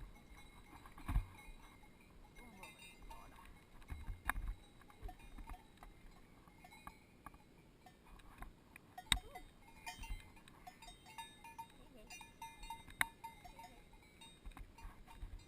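Cowbells on cows clanking irregularly, with a few sharper clangs that ring on briefly.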